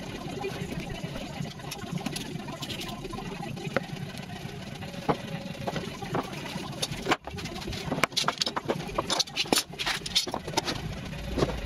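Hand sanding a carved white oak door pull with a sanding block: scratchy rubbing strokes with scattered knocks and taps, over a steady low hum.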